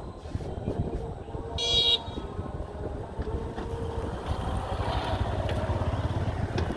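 A motor engine running steadily, with one short, high horn beep about a second and a half in.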